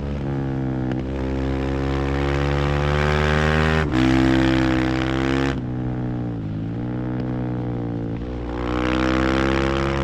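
Husqvarna FE 501's single-cylinder four-stroke engine revving under load, rising in pitch over the first few seconds with a short break about four seconds in. It eases off after about five seconds, then revs up again near the end.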